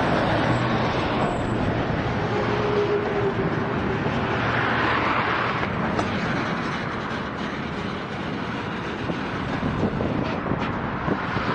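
Freight train of loaded flatcars rolling slowly past, its wheels running on the rails with a steady rumble and light rattle.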